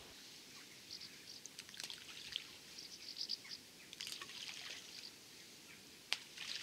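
Faint chirping of small birds, many short high calls over a soft outdoor hiss, with a few light sharp clicks, the clearest about six seconds in.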